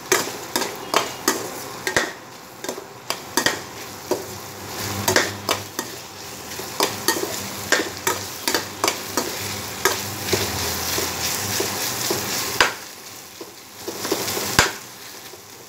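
Sliced onions, tomato and chillies sizzling in oil in an aluminium kadai, with a ladle stirring and scraping the pan in irregular clicks and knocks. The stirring pauses briefly near the end.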